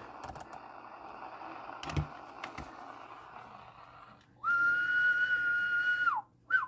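A man whistling a steady single note into a CB radio microphone as a transmit modulation test, held for about two seconds and dropping at the end, then a few short falling whistles; it swings the modulation meter to about 100 percent. A faint steady hiss comes before it.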